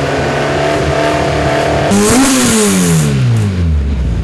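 Autocross Super Car's engine running steadily, then revved once about two seconds in: the pitch jumps up sharply and falls back over about a second and a half to a low idle.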